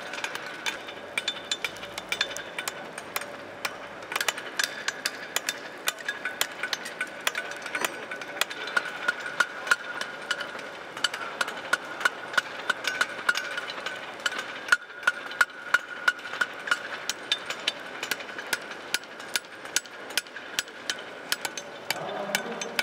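Blacksmiths' hand hammers forging steel bar on anvils: an irregular clatter of several blows a second, overlapping as if from more than one anvil, over a steady metallic ring.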